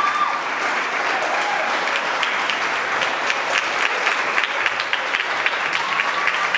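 A small group applauding by hand. The applause is steady, and individual claps stand out more and more from about two seconds in.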